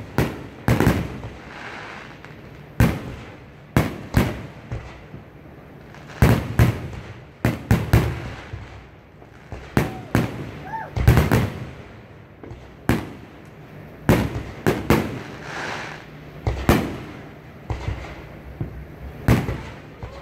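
Aerial firework shells bursting one after another in an irregular string of sharp bangs, often one or two a second, each trailing off in an echoing rumble.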